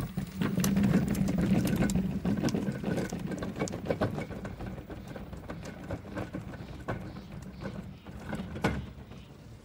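Greenworks electric hand cart's motor humming steadily as the cart rolls down a wooden plank ramp, with many clicks and knocks from the wheels and footsteps on the boards. It is loudest in the first few seconds and fades as the cart moves away, with one louder knock near the end.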